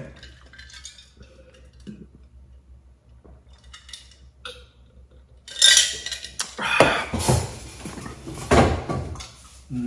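About five seconds of near quiet with faint small ticks, then a run of loud clattering knocks and clinks: a stainless steel tumbler set down on a countertop among them.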